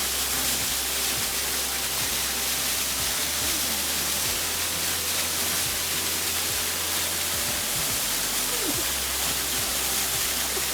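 Steady rushing of a small waterfall falling into a shallow pool.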